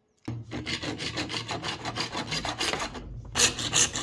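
Hand backsaw cutting a small half-inch PVC pipe fitting in quick, even strokes, trimming it to fit. The strokes break off briefly about three seconds in, then resume louder.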